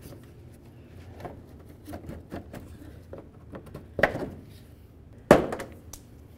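Plastic push clips being worked out of a car's inner fender liner with a prying tool: small clicks and scraping, then two sharp snaps about four and five seconds in, the second the loudest, as clips pop free.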